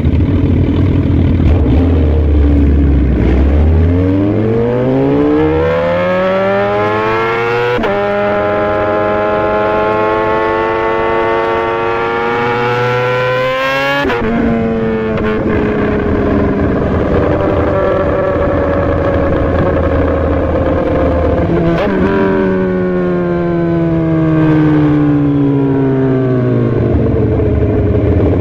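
Sport motorcycle engine accelerating hard: it pulls up from a low steady note with the pitch climbing, breaks at two quick upshifts, then falls away steadily as the throttle closes and the bike slows, settling back to a low note near the end.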